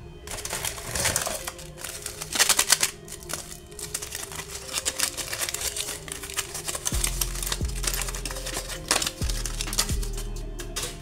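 Aluminium foil crinkling and rustling as it is unwrapped by hand, in dense crackly bursts, loudest in the first three seconds and again about nine seconds in. Background music plays throughout, with a low bass line coming in about seven seconds in.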